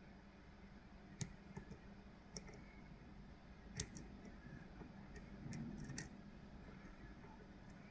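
Faint, irregular clicks and ticks of lock picks working the pins inside a Kale Kilit 164 BNE lock cylinder, as it is picked under tension, over a low steady hum.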